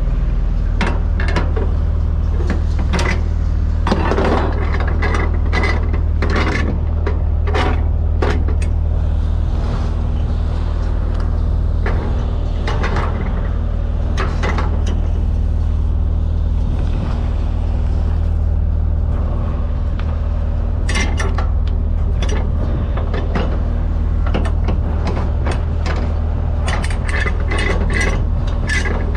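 Steady low hum of an idling diesel truck engine under scattered metallic clicks and clanks of flatbed strap-winch hardware being worked as cargo straps are set, the clicks coming in clusters.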